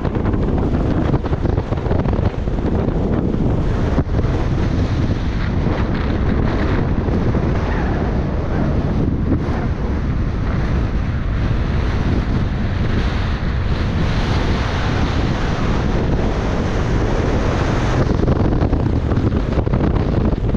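Strong wind buffeting the microphone: a loud, steady, low rumbling noise with no clear engine note.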